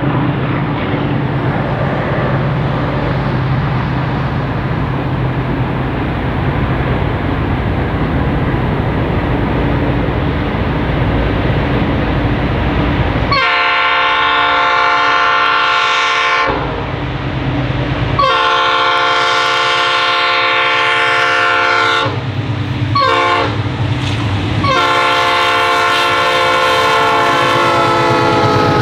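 A diesel-hauled freight train, led by SSR locomotive 44206, approaches with a steady low engine drone. Its multi-tone air horn then sounds a long blast about halfway through, a second long blast, a short toot and a final long blast whose pitch drops as the lead locomotive passes.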